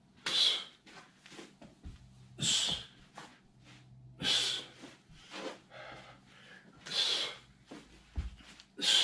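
A man's sharp, forceful exhalations, five of them at uneven gaps of about two seconds, each timed to a move as he shadow-drills grappling throws. A short low thud comes near the end.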